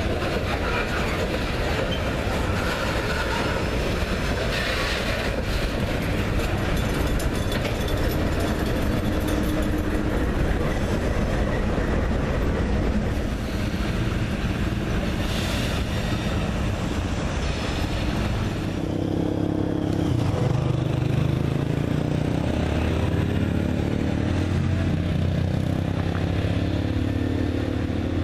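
Coal train passing close by: the steel wheels of CSX coal hopper cars roll and clack over the rail. After a change about halfway through, the low steady running of a GE CW44AH diesel locomotive's engine comes in under the wheel noise.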